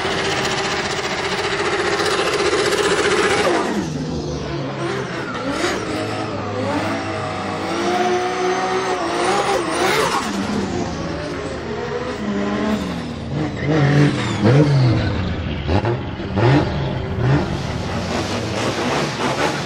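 A drift car's engine is held at high revs with a dense roar for about the first four seconds. It then revs up and down repeatedly, its pitch rising and falling, with quick sharp blips in the later part.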